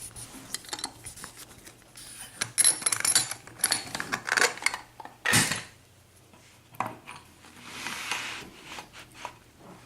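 Small metal clicks and clinks of a picked pin-tumbler lock and hand tools being handled, as the lock is readied for taking apart. There is a sharper knock about five seconds in and a short rustle around eight seconds.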